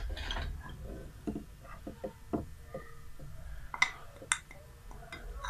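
Metal spoon scraping and tapping on a ceramic saucer and bowl as paste is scraped out: soft scattered clicks, with two sharper clinks about four seconds in.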